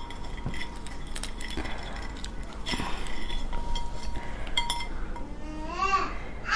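Raw swimming crab being handled and picked apart by hand over a ceramic plate: scattered clicks and cracks of shell, with light clinks against the plate. Near the end a brief wavering vocal sound.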